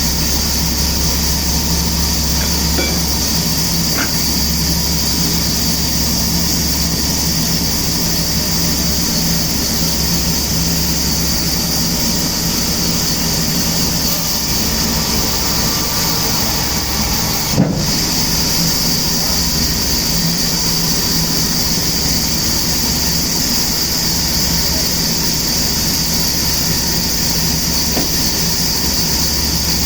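Sawmill machinery running steadily: a constant hiss over a low hum, with one sharp knock a little past halfway.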